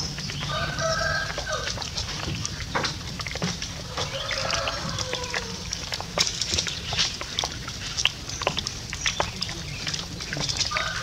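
Macaque calls: a few short pitched cries about half a second in, again around four to five seconds, and near the end. Scattered sharp clicks and a steady low hum run underneath.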